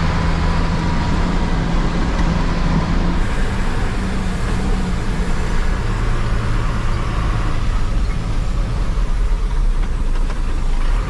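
Bus engine running and road noise inside the cabin as the bus drives on an unpaved dirt road: a steady low drone under a constant rumble.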